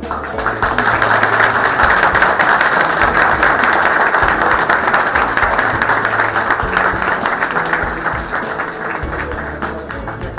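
A group of people applauding, clapping briskly and thinning out near the end, over background music.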